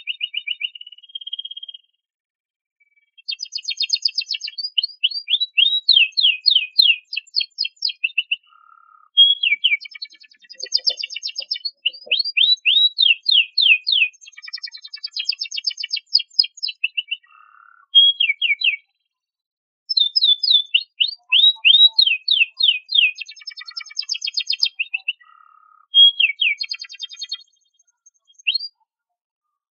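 Domestic canary singing: long rolling trills of rapid repeated sweeping notes, high-pitched, in phrases of a few seconds separated by short pauses.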